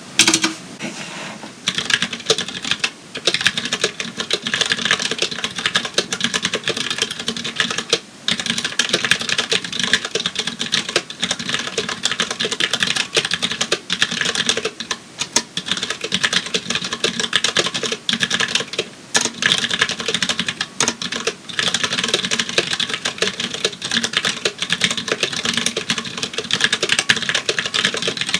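Continuous fast typing on a Tex Yoda mechanical keyboard with Cherry MX Clear switches: a dense, irregular stream of key clacks with a few brief pauses.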